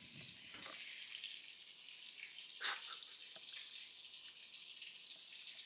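Bacon sizzling in a frying pan: a faint, steady hiss with scattered small pops, and one sharper crackle a little over two and a half seconds in.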